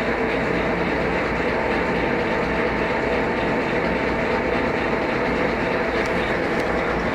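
WMW GFL 5000 thread milling machine running, a steady mechanical whir and rumble with a faint steady hum in it.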